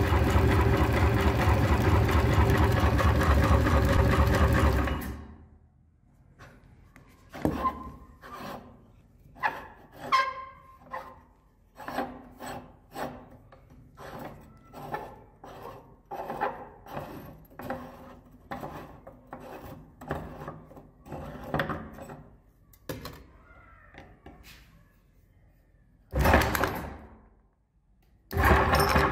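Electric meat grinder motor running steadily, then cutting off about five seconds in. A long run of light knocks and clicks follows, then a short burst of the motor and, near the end, the grinder starting up again.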